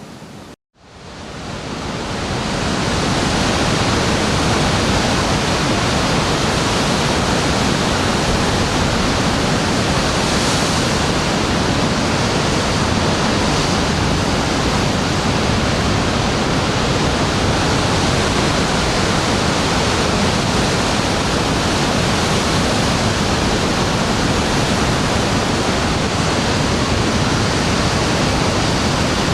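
Steady rushing noise of ocean surf, an even wash with no separate wave breaks standing out. It cuts out for a moment about half a second in and fades back up over the next two seconds.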